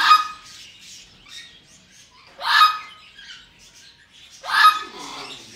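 A parrot calling loudly three times, about two seconds apart, with soft chirps in between.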